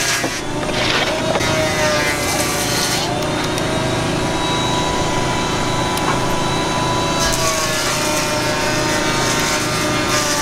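Steady mechanical hum throughout, with a few light clicks as the blade of an oscillating multi-tool is swapped by hand.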